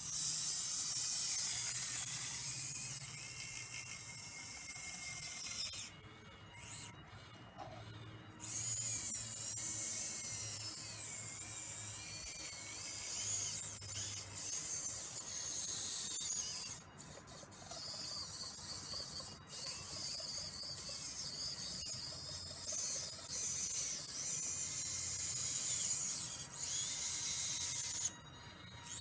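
Hydraulic pump and valves of an RC Schaeff HR16 model excavator running with a high whine and hiss, the pitch rising and falling as the boom and bucket move, stopping briefly several times.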